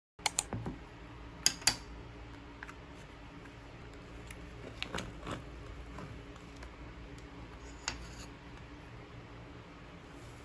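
Handling a plastic ice cream tub: a few sharp clicks and crackles of the plastic lid near the start and again midway, then softer taps and scrapes of a wooden spoon digging into the ice cream. A steady low hum underneath.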